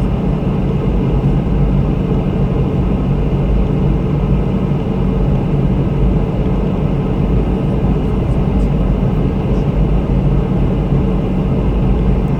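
Boeing 717 airliner in flight, its rear-mounted Rolls-Royce BR715 turbofans and the airflow making a steady, unchanging drone with a low hum in it.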